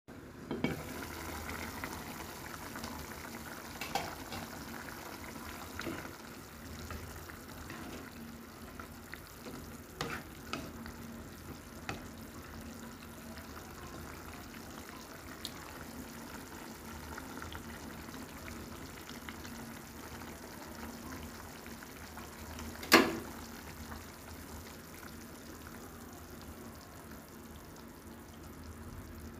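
Chicken and vegetable soup simmering in a pan with a steady soft bubbling hiss, stirred with a spatula. Occasional sharp clicks and knocks of utensil or lid against the pan, the loudest one about two-thirds of the way through.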